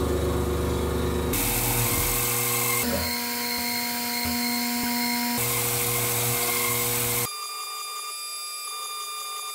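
Small CNC milling machine's spindle running and cutting into aluminium, a steady whine over grinding noise. The cutter changes from a wide face mill to a small end mill. The sound changes abruptly several times, every second or two, and is quieter for the last two seconds.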